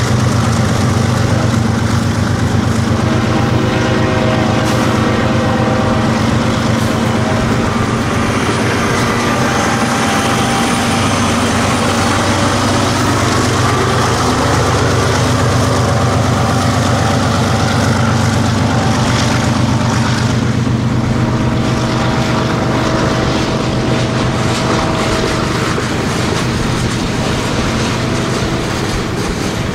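Diesel locomotives of a BNSF freight train running loud and steady, their engines holding a constant low drone. The sound eases slightly near the end.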